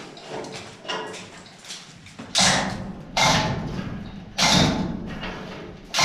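A 5-ton chain hoist hauled on by hand, straining against a stuck blast valve: a few faint clicks, then three loud clanking hits roughly a second apart in the second half, each ringing briefly.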